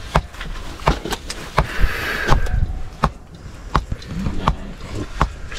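Irregular sharp clicks and knocks of metal pots and utensils being handled beside a wood fire, with a brief hiss about two seconds in.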